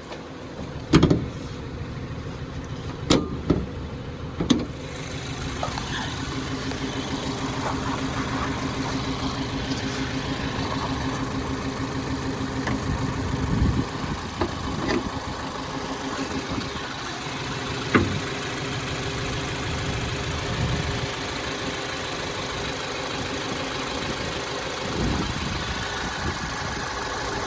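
Mazda 3 four-cylinder engine idling steadily, a car with a stored cylinder 2 misfire code (P0302). Several sharp knocks and clunks in the first few seconds, and a few single clicks later.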